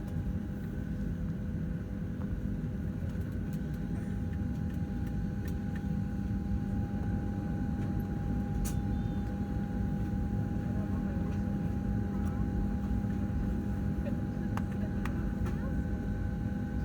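Steady hum inside a Boeing 737-700 cabin on the ground, with a few constant whining tones over it and some faint clicks.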